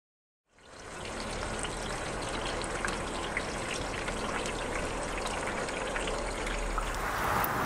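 Wood fire burning in a wood-fired oven: a steady rushing hiss of flames with many scattered crackles and pops, fading in about half a second in.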